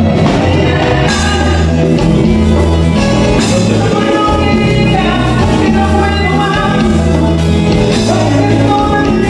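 Live Latin band performing a song: a lead singer over electric bass, drum kit, keyboard and electric guitar, loud and steady.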